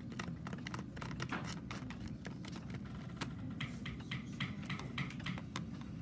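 A paintbrush being rinsed in a water cup: faint, irregular light clicks and taps of the brush against the container, over a low steady room hum.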